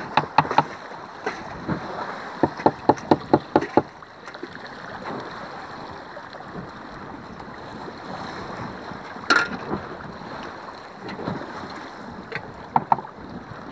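Sea water washing around a small fishing boat, with wind on the microphone as a steady rush. A quick run of sharp knocks comes in the first few seconds, and one louder knock about nine seconds in.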